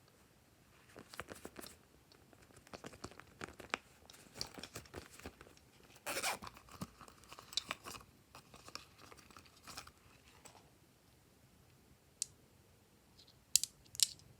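Crackling and crunching handling noise in dense bursts, loudest about six seconds in, dying away after about ten seconds, then a few sharp clicks near the end.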